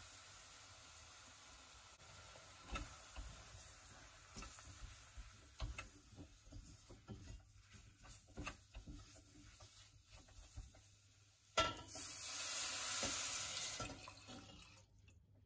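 Mushrooms and onion frying in a stainless steel pot while flour is stirred in with a spatula: a faint sizzle, then irregular scrapes and knocks of the spatula against the pot. Near the end, fish stock and wine are poured into the pot for about three seconds, a loud steady splashing pour that is the loudest sound.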